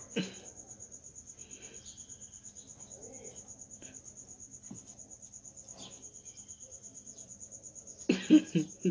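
A high-pitched insect trill pulsing steadily, about eight pulses a second. A brief louder noise comes near the end.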